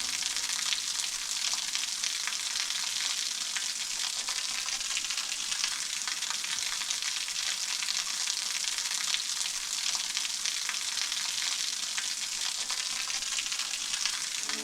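Rushing water of a waterfall, a steady, even hiss with no music over it.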